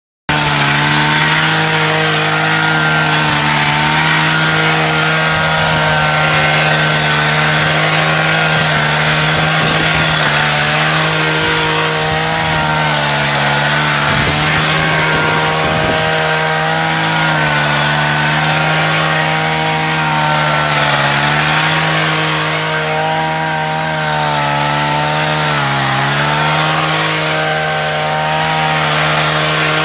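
HT230 handheld rice cutter's small petrol engine running at high speed as it cuts rice. The engine starts sounding abruptly right at the start and holds a steady pitch, sagging briefly a few times.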